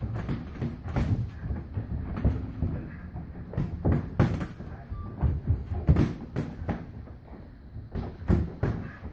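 Irregular thuds and smacks of boxing gloves striking and feet shuffling on the ring canvas during sparring.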